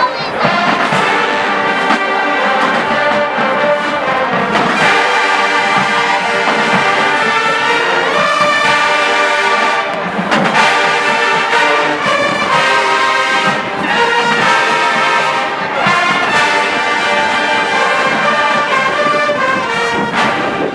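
HBCU marching band playing loudly, a brass-heavy sound of sustained, full chords that shift from phrase to phrase.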